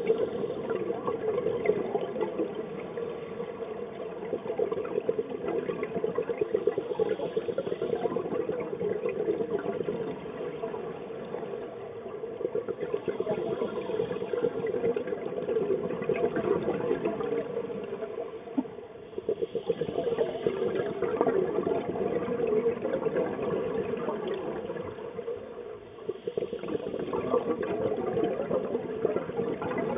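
Underwater sound picked up through a camera housing: a continuous, muffled watery rush with fine crackling running through it. It dips briefly twice in the second half.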